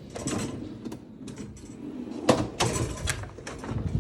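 Soft-close drawers of a Milwaukee 46-inch rolling toolbox sliding open and shut, with clicks and a sharp knock about two seconds in.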